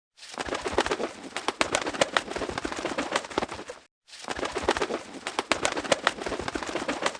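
Birds, a dense run of quick clicks and flutters in two stretches of about three and a half seconds each, separated by a short break; each stretch starts and stops abruptly.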